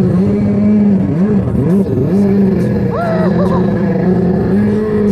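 Ported Yamaha Superjet two-stroke jet ski engine running at high revs. Its pitch holds steady, then dips briefly and climbs back several times as the throttle comes off and on.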